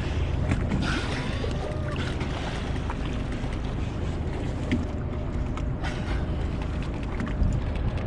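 Spinner dolphins heard underwater: scattered clicks and a faint, curving whistle about a second in, over a steady low rumble.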